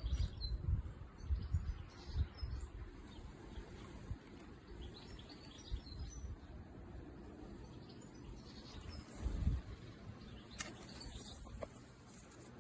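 Small birds chirping in short, scattered calls, with low rumbling on the microphone that is loudest at the start and again about nine seconds in.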